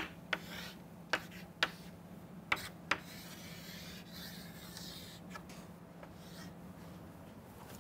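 Chalk on a chalkboard as an equation is written: a few sharp taps in the first three seconds, then softer scratching strokes. A steady low hum runs underneath.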